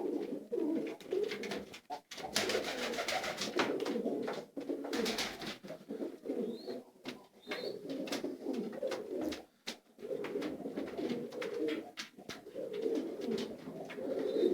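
Domestic pigeons cooing repeatedly in low, pulsing calls, with a stretch of rustling or scuffling a couple of seconds in.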